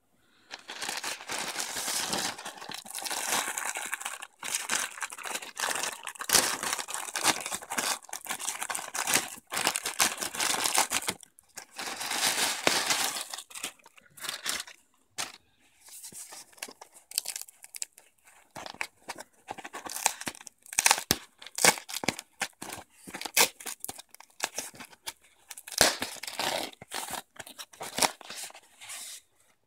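Plastic mailer bag crinkling and tearing as it is opened, giving way after about halfway to the softer, intermittent rustle and crackle of foam packing wrap being unfolded and peeled back.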